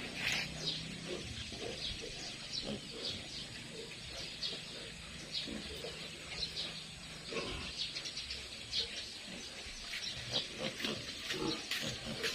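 Piglets squealing: many short, high squeals scattered throughout.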